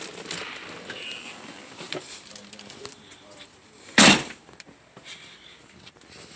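Faint rustling and crackling with one sharp, loud knock about four seconds in; no subwoofer bass is playing.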